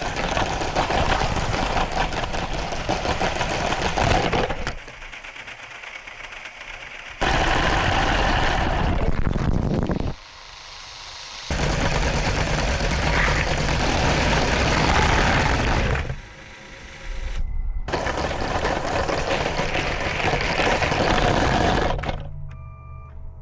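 Lego train running on plastic track: a loud, rapid rattling clatter of its motor and wheels, broken several times by sudden cuts to quieter stretches.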